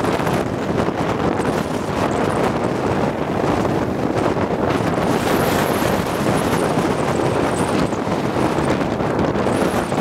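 Strong wind buffeting the microphone of a GoPro Hero Session camera riding on a moving bicycle: a steady, dense rush of noise.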